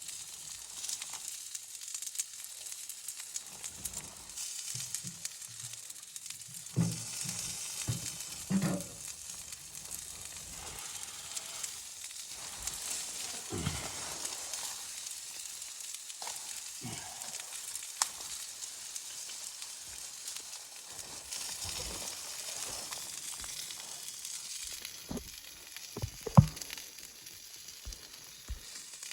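Food sizzling as it fries in a pan, a steady hiss broken by soft knocks and clicks, likely from stirring or a utensil against the pan, with one sharp click near the end.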